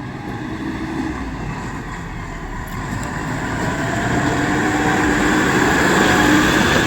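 Diesel engine of heavy earth-moving machinery running, growing steadily louder, as if coming closer or working harder.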